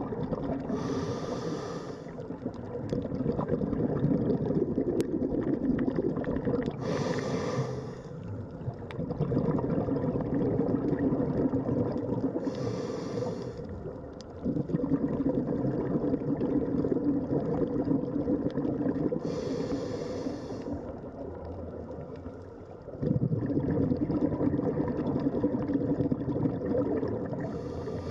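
Scuba diver breathing through a regulator underwater: a short hiss on each inhalation about every six seconds, five times, each followed by a long bubbling rumble of exhaled air.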